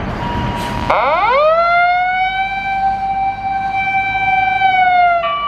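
Fire engine siren starting up: the tone rises quickly to a steady wail about a second in, holds for about four seconds, then dips slightly and cuts off near the end.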